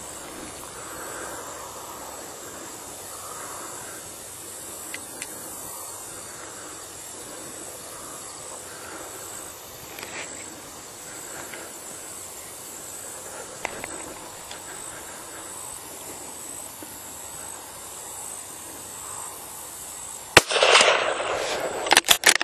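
A single shot from a Marlin 882SS .22 Magnum rifle about 20 seconds in, the loudest thing by far, followed by about a second of noise and a quick run of sharp clicks. Before it, only a quiet night background with a faint steady high tone.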